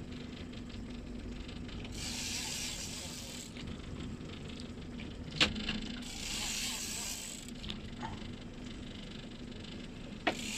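Boat motor running with a steady low hum, while three hissing rushes of about a second and a half each pass over it and two sharp clicks sound, one about halfway and one near the end.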